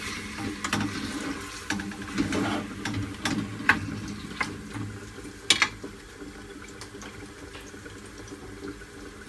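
Wooden spoon stirring chicken and tomatoes frying in a stainless steel pot, knocking and scraping against the pot over a steady sizzle. The stirring stops after about five and a half seconds, leaving the sizzle on its own.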